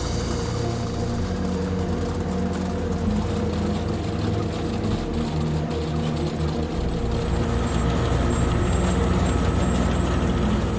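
Heavy farm machine's diesel engine running steadily under load, with a thin high whine joining about seven seconds in.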